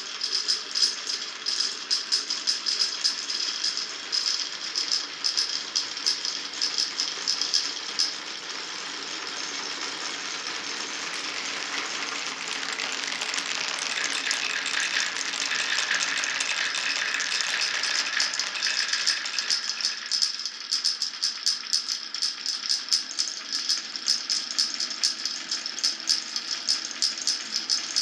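Glass marbles rolling and clacking down a wooden marble run, a dense stream of quick rattling clicks. Between about 8 and 20 seconds in, the clicking gives way to a smoother, continuous rolling sound that slowly grows louder, then the rapid clacking returns.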